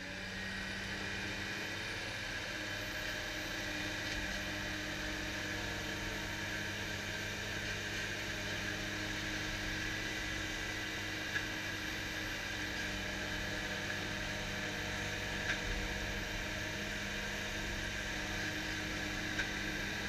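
Steady drone of forest-machine diesel engines, a Ponsse Ergo harvester and a Ponsse forwarder idling or working, with three short sharp clicks in the second half.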